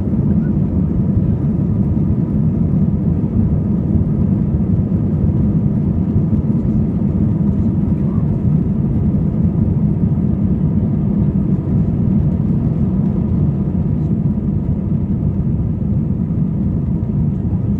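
Steady low cabin roar inside a British Airways Airbus A320, from its jet engines and the airflow over the fuselage, during the climb after takeoff, with a faint steady hum above it.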